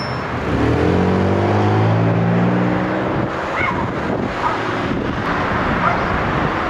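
Passing cars at close range: a car engine pulls away, its pitch rising for about two and a half seconds, then tyre and road noise as another vehicle goes by.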